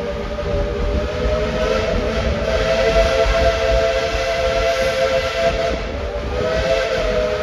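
Tweetsie Railroad #12's 5-inch Crosby three-chime steam whistle sounding a long, steady chord. It swells, eases off about six seconds in and comes back up, over a hiss of steam and a low rumble.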